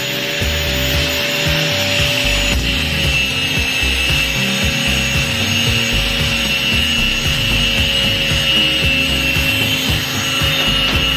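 Steady, continuous rasping of metalwork on a car body, carrying a constant whine.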